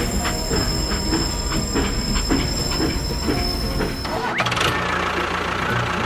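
A small motor whining steadily with irregular clicking and knocking, about three or four a second. About four seconds in, the sound changes abruptly to a steadier low hum.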